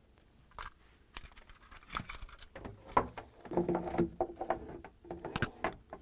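Irregular light clicks, knocks and rattles of a plastic electrical junction box and its power cable being handled and set in place under a sink cabinet, starting about half a second in.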